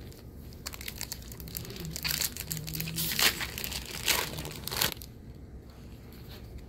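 Plastic foil booster-pack wrapper crinkling and being torn open, a crackly rustle with a few sharper crackles, stopping about five seconds in.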